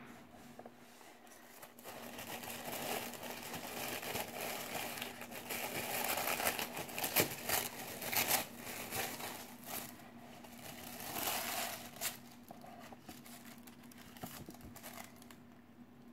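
Tissue paper crinkling and rustling as hands pull the wrapping open, with a few sharp crackles. It builds after about two seconds and dies down after about twelve.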